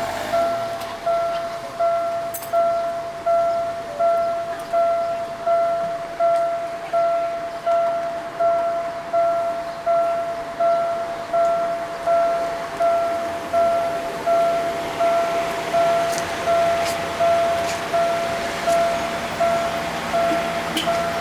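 Railway level-crossing warning bell ringing on and on in even, decaying single-tone strikes, about three every two seconds. It keeps sounding because the crossing barrier is stuck and has not lifted after the train passed. Traffic noise swells in the second half.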